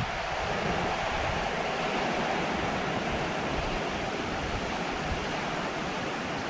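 Heavy hurricane rain pouring down steadily.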